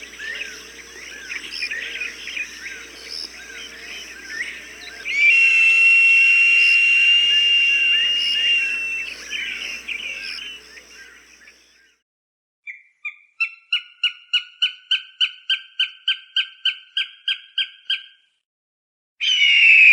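Recorded hawk calls. First comes a field recording with a long, steady high whistle over many small chirps. After a short pause there is a rapid run of about twenty sharp calls, about four a second, and then a loud harsh scream begins near the end.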